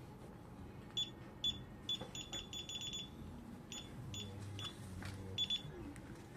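DSC alarm keypad beeping as keys are pressed: short high beeps, some single and some in quick runs of several, about two seconds in and again near the end.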